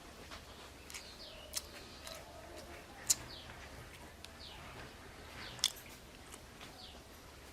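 A person chewing food, with three sharp clicks, the loudest about three seconds in. Short falling chirps from a bird come every second or so.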